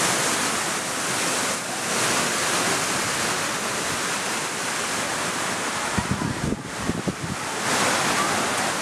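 Steady rushing noise, even and fairly loud, with a few low bumps about six to seven seconds in.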